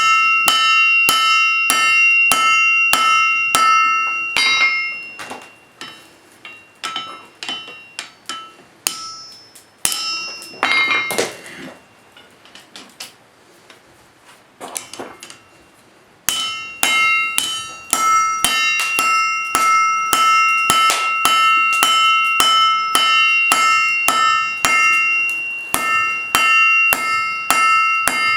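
Forging hammer blows on an anvil, about three a second, each leaving a bright metallic ring. The hammering stops about four seconds in, leaving scattered light knocks and clinks, and resumes at the same pace about twelve seconds later.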